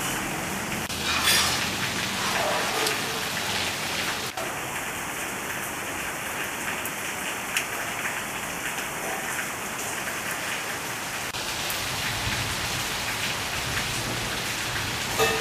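Rain falling steadily, an even wash of drops.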